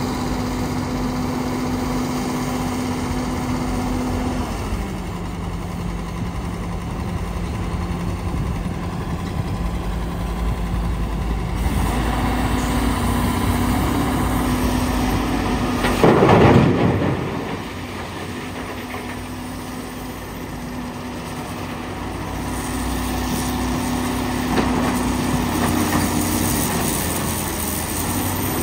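Komatsu PC450LC hydraulic excavator's diesel engine running steadily under working load. Its pitch drops about four seconds in and rises again about twelve seconds in. Just past halfway comes a loud crash of rock as a bucketload is dumped into the dump truck's steel bed.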